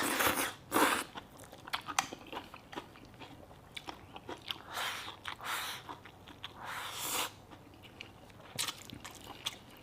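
A person eating a bowl of rice with spicy dressed steamed eggplant and century egg: close-up chewing and biting, in irregular short noisy bursts with small mouth clicks between.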